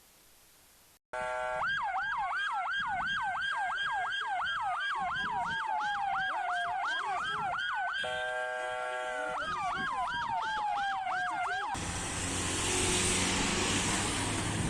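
Several emergency-vehicle sirens sounding together: a fast yelp repeating a few times a second over a slow wail that rises and falls, with a steady horn-like tone for about a second around the eighth second. The sirens start abruptly about a second in and cut off sharply near the end, giving way to a loud rushing noise.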